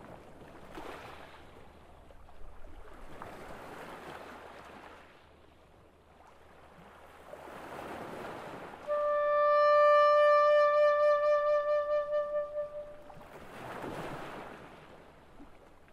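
Sea waves washing in slow swells every few seconds. About nine seconds in, a soprano saxophone enters with one long held note that wavers in vibrato and dies away after about four seconds; it is the loudest sound.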